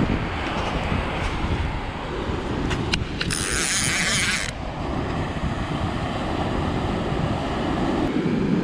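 Wind buffeting the microphone over the surf. About three seconds in there are a couple of sharp clicks, then a high rasping burst lasting just over a second.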